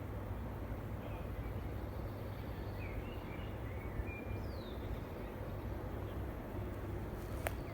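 A few faint forest bird chirps, one a short falling whistle, over a steady low rumble; a single sharp click near the end.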